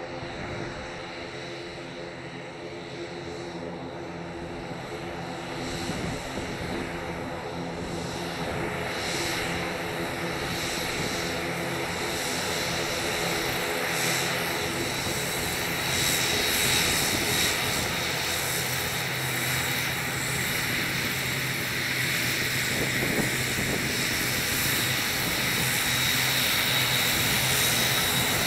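Airliner engines droning with a high whine, growing steadily louder as the aircraft comes closer.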